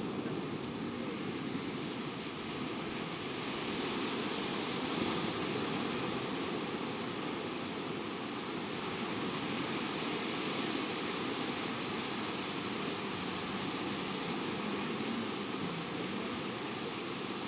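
Small waves breaking and washing up on a sandy beach: a steady rush of surf that swells slightly a couple of times.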